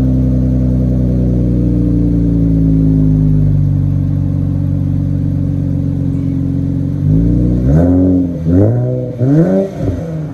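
Infiniti Q60's custom dual exhaust idling steadily, the idle easing down slightly over the first few seconds. About seven seconds in, the engine is blipped in three quick revs that rise and fall.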